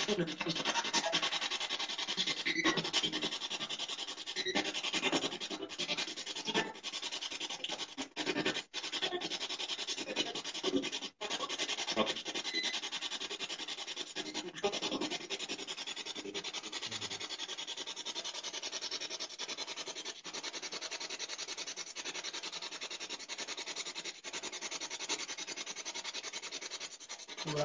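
Steady static-like hiss with faint rubbing and scratching, broken by a few brief clicks and momentary dropouts.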